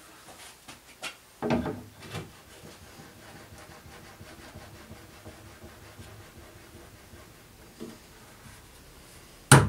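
A wooden cabinet door being lifted and worked into its opening in a wall cabinet, with faint wood rubbing and a couple of light knocks. Near the end it seats with one sharp, loud clack against its two magnetic catches.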